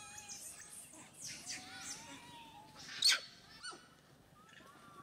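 Birds chirping and whistling, with quick high falling chirps and longer whistled notes, and one sharp, loud call about three seconds in.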